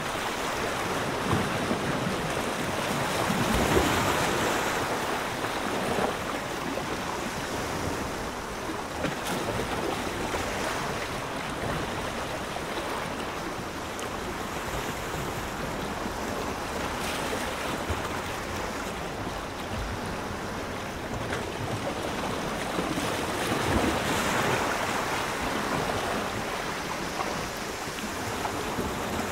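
Ocean surf: a steady wash of waves, swelling louder a few seconds in and again near the end.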